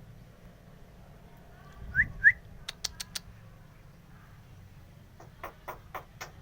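Jalak (starling) calling: two short rising whistles, then a quick run of four sharp clicks, and about five more clicking notes near the end.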